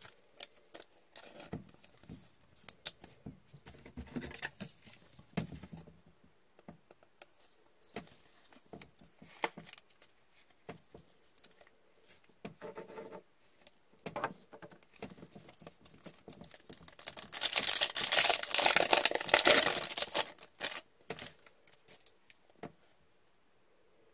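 Gloved hands handling trading cards, with scattered small taps and rustles as a card is slid into a rigid plastic toploader. About two-thirds of the way through comes a foil card-pack wrapper torn open and crinkled for about three seconds, the loudest sound here.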